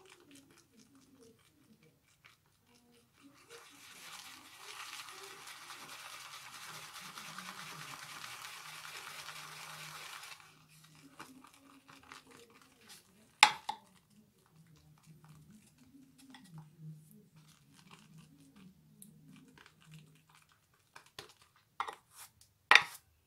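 Shaving brush with a resin handle whipping soap lather in a textured lathering bowl: a steady wet, brushy hiss for several seconds, then quieter swirling. The brush knocks sharply against the bowl about halfway and twice near the end.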